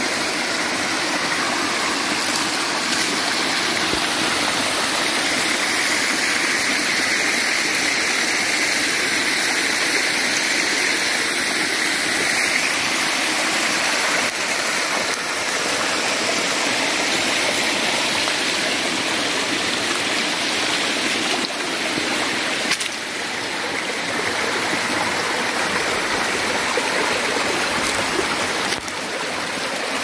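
A small stream's steady rushing and splashing as it pours over rock ledges at the head of a waterfall.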